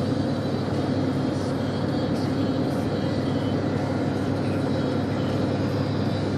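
Steady road and engine noise of a moving car, heard inside the cabin.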